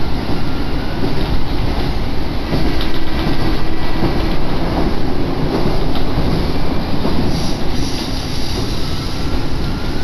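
Diesel railcar running along the line, heard from inside the cabin: a steady rumble of engine and wheels on the rails.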